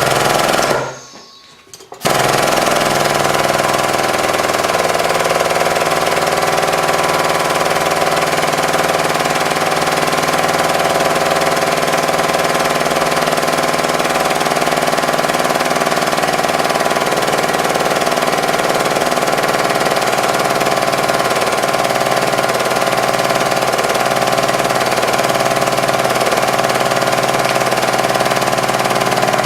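Hydraulic press pump motor starting about two seconds in and then running steadily with a constant hum.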